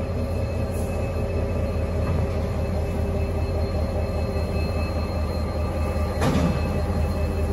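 Diesel-electric locomotive engine running steadily as Aurizon 2300-class locomotive 2371 moves slowly across a road level crossing, with a short clank about six seconds in.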